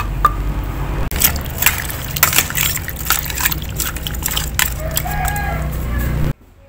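A utensil turning wet snakehead fish pieces in seasoning marinade in a plastic basin: scattered clicks, knocks and wet squelches over a steady low hum. It stops abruptly near the end.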